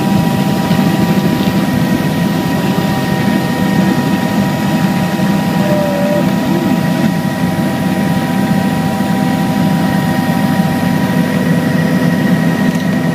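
Helicopter engine and rotor running at flight power, heard from on board: a steady heavy drone with a constant high whine over it.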